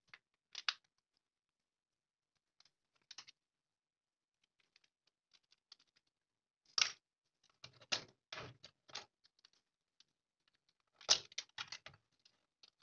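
Clicks and clatters of a red plastic rechargeable torch's casing being handled and pried apart, with its battery taken out. There are scattered sharp clicks in small clusters, the loudest about halfway through and again near the end.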